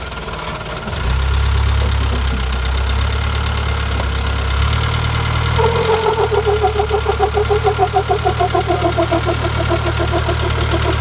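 Land Rover Defender 110's engine running under load as it crawls over rocks, growing louder about a second in. About halfway through a pulsing whine joins it, slowly falling in pitch.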